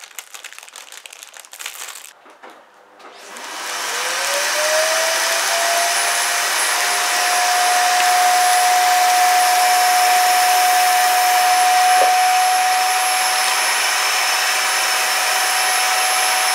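Rustling of the plastic storage bag, then a household vacuum cleaner switches on about three seconds in. Its motor whine rises and settles into a steady drone over a loud rush of air as the hose nozzle sucks the air out of a vacuum storage bag full of clothes, shrinking it flat.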